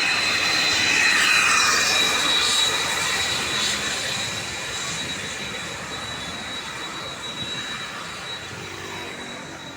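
Tour bus passing close by at speed: a rush of engine and tyre noise swells to its loudest about a second in, then slowly fades as it goes away, with a thin high whine running through it.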